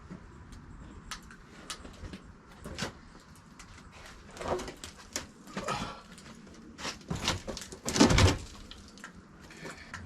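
Knocks and scrapes of a heavy piece of sawn log being shifted by hand, with a heavy thud about eight seconds in.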